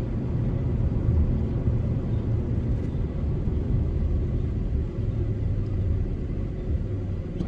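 Steady low rumble of a truck's engine and tyres on the road, heard from inside the cab while driving.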